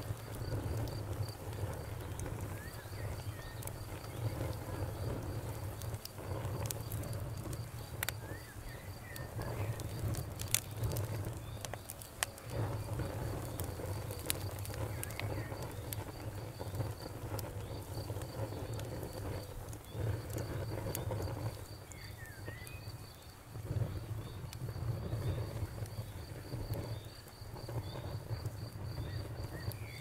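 Wood fire crackling in a fireplace: a steady low rumble of burning logs with scattered sharp crackles and occasional louder pops.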